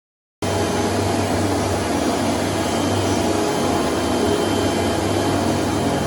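CNC router running steadily while milling aluminium composite (ACP/Dibond) sandwich panel: an even whirring machine noise with a low hum underneath, starting abruptly just after the start.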